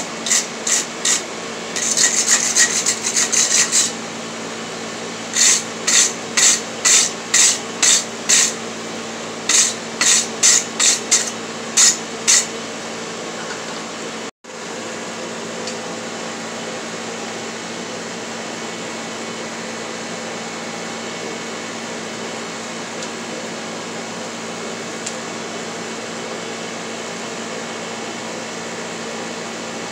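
Repeated scratchy scrubbing strokes on a forged steel bar at the anvil: a dense flurry, then two runs of about seven strokes at roughly two a second. After a sudden cut about halfway through, only a steady whirring hum remains.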